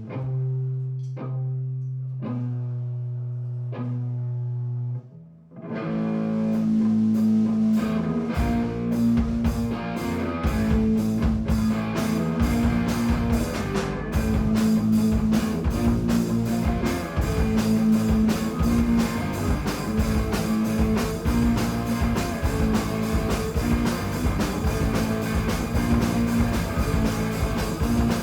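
Live punk rock band: a short intro of single plucked notes on an amplified string instrument, then about six seconds in the drums, bass and electric guitar come in together and play an instrumental passage with a steady beat.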